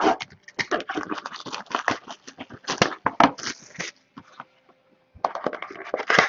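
Cardboard trading-card boxes handled on a wooden table: a quick run of sharp taps, knocks and scrapes as they are set down and moved. After a brief pause, a box is gripped and worked open with scratchy cardboard rubbing and clicks near the end.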